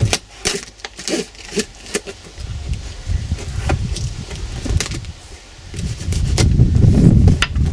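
Cardboard box being opened with a knife: the blade slicing packing tape and the flaps scraping and rustling, with a string of sharp clicks and scrapes. From about six seconds in, a louder, low rumbling noise of the box being handled.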